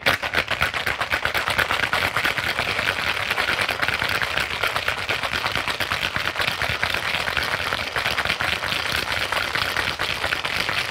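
Ice cubes rattling fast inside a metal cocktail shaker tin as a cocktail is shaken hard, a steady, rapid clatter that does not let up.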